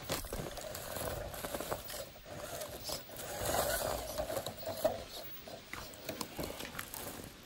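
Electric motor and gear drivetrain of a scale RC rock crawler whining at crawling speed, louder for a second or so around the middle, with its tyres scraping and clicking over rock and dry leaves.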